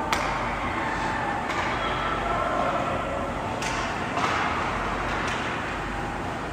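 Ice hockey play in a rink: sharp clacks of sticks and puck, the loudest right at the start and another about three and a half seconds in, over steady rink noise.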